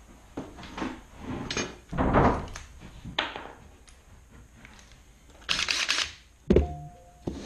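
Handling noise at a workbench: knocks, scrapes and rattles as a cordless drill and small parts are picked up and set down. A bright rattle comes about two-thirds of the way through, then a sharp knock followed by a short hum near the end.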